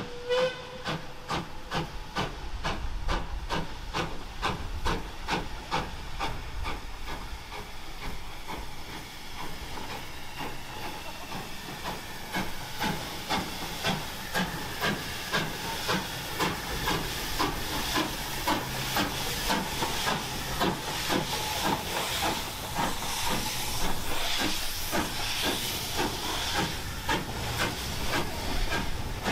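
Caledonian Railway 0-6-0 steam locomotive No. 828 running slowly in under steam: its exhaust beats in a steady rhythm over a continuous hiss of escaping steam. A short whistle note sounds right at the start.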